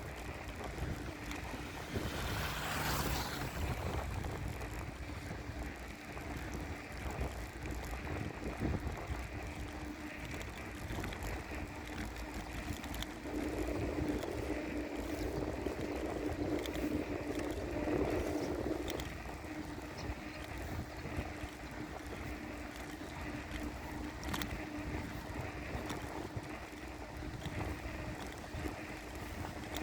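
Wind buffeting the microphone over steady road rumble while riding a bicycle, with a faint steady hum. The rumble grows louder for several seconds midway.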